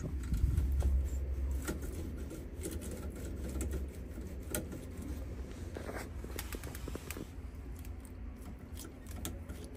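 Light scattered metallic clicks and taps as a homemade steel tube sleeve with small ball bearings is slid and worked along a bicycle derailleur's shaft, over a low rumble during the first few seconds.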